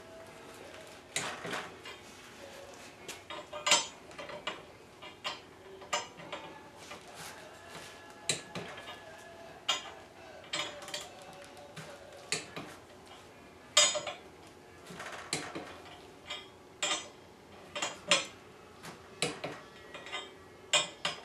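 Irregular metallic clicks and clinks of a socket and adjustable torque wrench being fitted onto and turned on the steel fuel nozzles of a jet engine's fuel manifold ring, rechecking each nozzle's tightness at the set torque.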